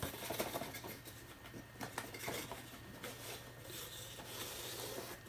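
Small cardboard box handled by hand: irregular scratchy scrapes, rustles and light taps of fingers on cardboard, busiest in the first couple of seconds and softer after.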